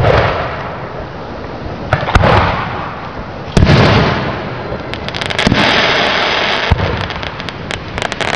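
Aerial fireworks shells bursting overhead, about six or seven booms spaced one to two seconds apart, each followed by a rolling rumble. About halfway through, a stretch of dense crackling hiss runs under the booms.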